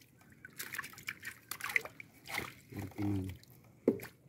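Water splashing and sloshing in short irregular bursts as fish are scooped out of a holding net with a hand scoop net. A short voiced sound, like a brief hum or word, comes about three seconds in.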